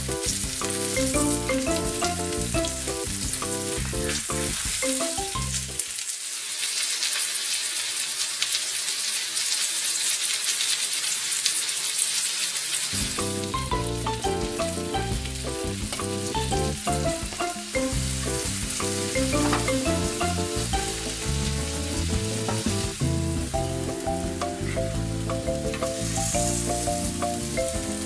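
Salmon fillets frying in butter in a cast-iron skillet: a steady sizzle, with a metal spatula turning the fish. Light background music plays along with it and drops out for several seconds in the middle.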